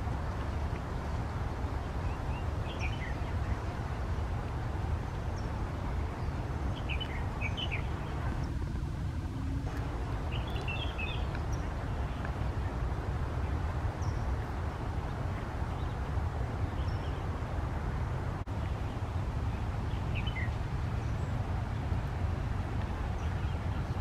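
Steady low outdoor rumble with small birds chirping briefly a few times, in short high clusters.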